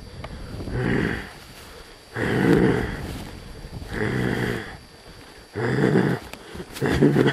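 A person's deep, drawn-out breathing groans, five in a row about every second and a half, like a lurking monster's heavy breathing.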